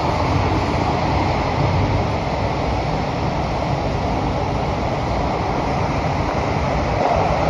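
Steady rumble and hiss of a Kawasaki & CRRC Sifang CT251 metro train running through a tunnel, heard inside the passenger car.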